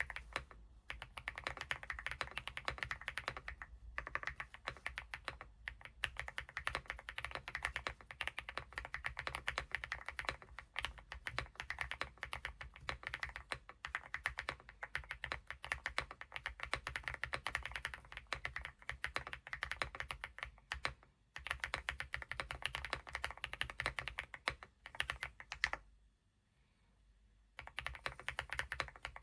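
Fast, continuous typing on a Weikav Lucky65 V3 mechanical keyboard with HMX Dirty Pink switches: a dense run of key clacks, with a few brief breaks and a pause of about a second and a half near the end before the typing resumes.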